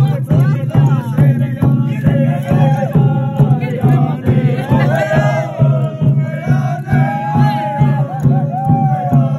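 A group of people singing together in a chant-like song, with sharp beats keeping a steady rhythm.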